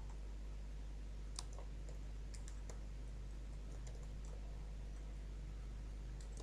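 Computer keyboard keys clicking faintly and irregularly as text is typed, with one sharper click about a second and a half in, over a steady low hum.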